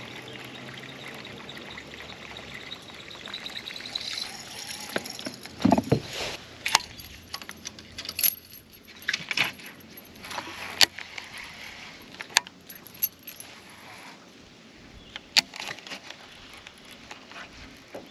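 Baitcasting fishing tackle being handled: a series of sharp metallic clicks and light knocks from the reel and rods, with a short rising whir about three to four seconds in and a dull thump near the middle.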